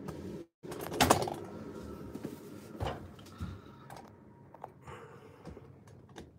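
Handling noise from a smartphone held close to its microphone: fingers rubbing and tapping on the phone, with scattered clicks and knocks, loudest about a second in. The sound cuts out completely for a moment about half a second in.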